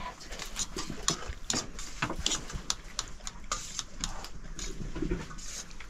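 Irregular light clicks and taps, a few a second, over a faint low hum.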